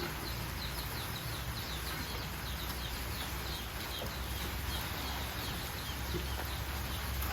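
Steady rain hiss with a small bird chirping quickly, about three short falling chirps a second, for the first few seconds.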